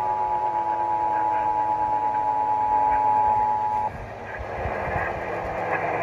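Emergency Alert System attention signal, the steady two-tone 853/960 Hz alarm, playing through a Sangean HD Radio's speaker from an AM broadcast during a required monthly test. It cuts off abruptly about four seconds in, leaving AM radio hiss.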